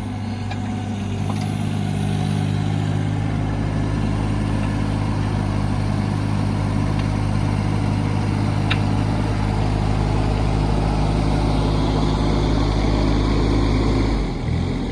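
The 2008 John Deere 17D mini excavator's Yanmar three-cylinder diesel engine running steadily at working speed. It gets a little louder about two seconds in, and its speed drops shortly before the end.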